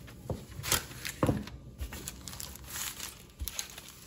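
Parchment paper crinkling and rustling as yeast dough is rolled out and pressed on it with a wooden rolling pin, with a few short knocks in between.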